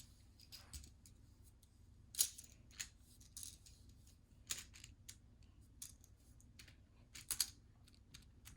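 Plastic magnetic building tiles clicking and clacking as they are handled and snapped together: scattered sharp clicks, the loudest a little over two seconds in, with a quick pair near the end.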